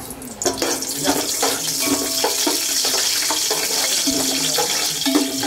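Cashews and whole spices sizzling steadily in hot oil and ghee; the sizzle swells about half a second in.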